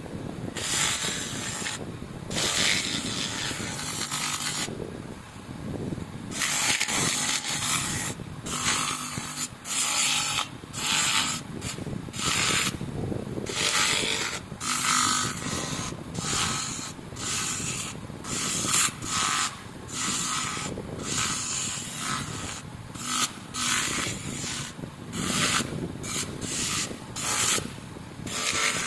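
Abrasive rubbing strokes on a rear drum brake cover being polished by hand: a raspy scrubbing sound that comes in strokes about once or twice a second, with short breaks between them and a longer pause about five seconds in.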